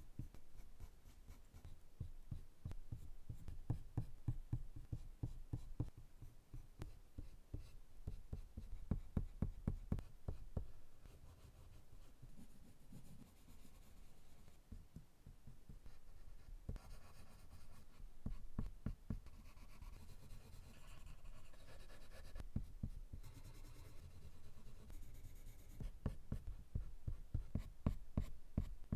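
Colored pencil strokes scratching on drawing paper in quick back-and-forth shading strokes. The strokes ease into softer, smoother shading for a stretch in the middle, then turn quick and scratchy again near the end.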